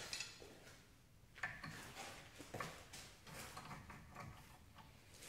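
Faint, irregular metallic clicking of a socket ratchet working the 21 mm caliper-bracket bolts on the back of a rear disc-brake hub, a few clicks a second with short pauses.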